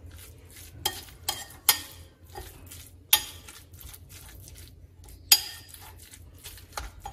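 A metal spoon stirring minced meat in a ceramic bowl: soft wet stirring, with the spoon scraping and clinking against the bowl. Several sharper clinks come through it, the loudest about five seconds in.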